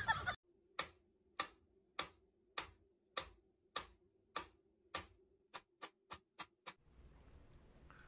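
Mechanical pendulum metronome ticking at a steady beat of almost two ticks a second. The ticks come faster near the end and stop about seven seconds in.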